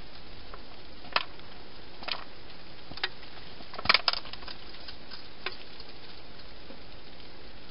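A few short, sharp crunching clicks at uneven intervals, about a second apart, with a louder cluster about four seconds in. This fits a wild hedgehog chewing dry food, unseen inside the plastic feeding-station box.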